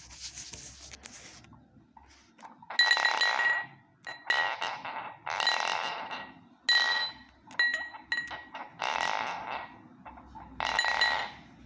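A strange repeated noise: about seven bursts roughly a second apart, each starting sharply and carrying a high, steady ringing tone, like a clink.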